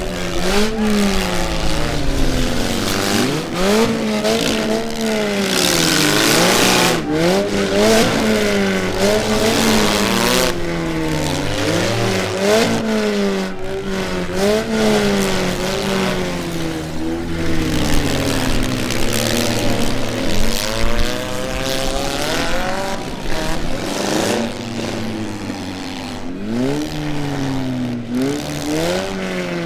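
Several four-cylinder demolition derby cars revving hard over and over, their engines rising and falling in pitch as they accelerate, with sharp bangs now and then.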